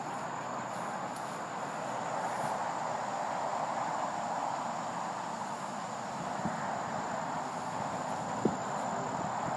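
Steady insect chorus of crickets or similar insects, an even hum-like drone with a thin, steady high whine above it. Two brief soft clicks come in the second half.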